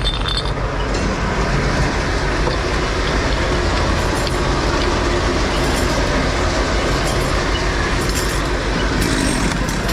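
Fire engine's engine and water pump running steadily, a loud continuous rumble with hiss, as the pump feeds a hose line.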